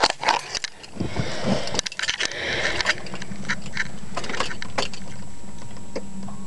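Clatter and key jingling of a driver settling in and putting the key in a car's ignition, then a steady low hum from about three seconds in once the ignition is switched on, before the engine is cranked.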